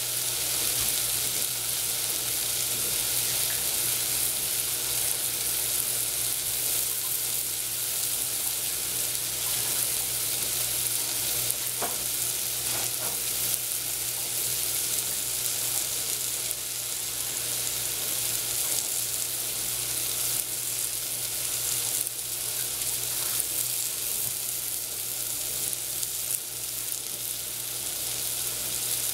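Sliced shiitake mushrooms sizzling steadily in a stainless steel saucepan, with a couple of faint pops near the middle.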